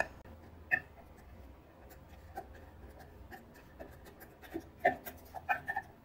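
Light clicks and scrapes of a screwdriver being handled against a ceiling fan's plastic motor housing, with a cluster of louder clicks near the end.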